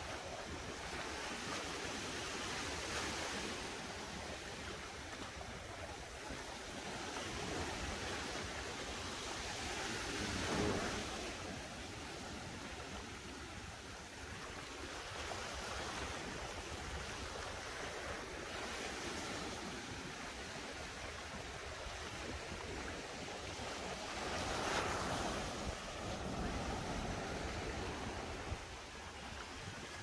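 Gentle sea waves breaking and washing up on a beach, rising and falling in surges; the biggest come about a third of the way in and again later on. Wind buffets the microphone underneath.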